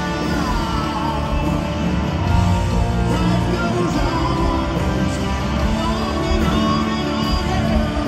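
Southern rock band playing live at full volume: electric guitars and bass guitar with an organ and drums, in a dense, steady mix.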